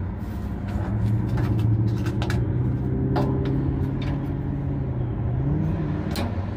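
Plastic clicks and knocks from a battery holder being snapped into a tankless propane water heater and its control knobs being turned, over a steady low motor hum that rises briefly in pitch near the end.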